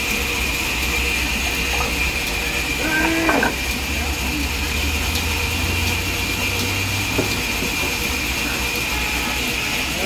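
Large sawmill band saw running without a cut: a steady whir with a constant high whine over a low motor hum. A brief voice cuts in about three seconds in.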